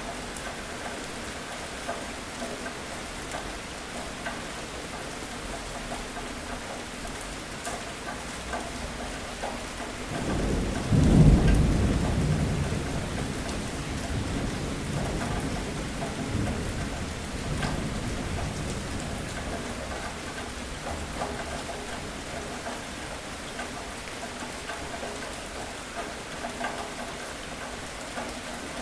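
Steady rain falling and pattering, with a rolling thunderclap about a third of the way in that rumbles loudest for a moment and then fades slowly over several seconds.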